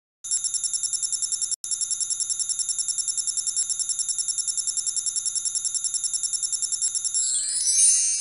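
Electronic text-animation sound effect: a rapid, even ringing trill, about eight or nine pulses a second, like a phone bell. About seven seconds in it turns into a brief shimmering flourish, which is the loudest part, and then cuts off.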